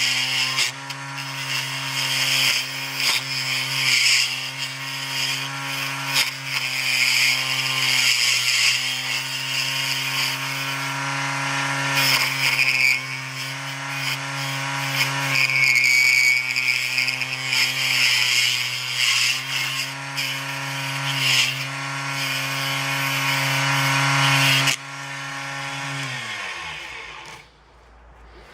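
Small 80W 24V DC mini wood lathe motor running with a steady hum while a hand tool scrapes and cuts a spinning piece of hardwood. Near the end the cutting stops abruptly and the motor is switched off, its hum falling in pitch as it spins down.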